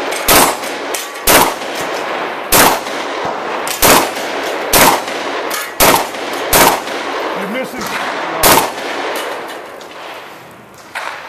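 A shotgun firing a string of eight shots at steel targets, roughly one a second with uneven gaps, each shot trailing off in an echo.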